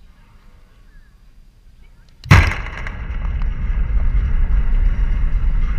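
A baseball slams into the backstop fence close to the microphone with one very loud, sharp crack a little over two seconds in. A steady low rumbling noise follows.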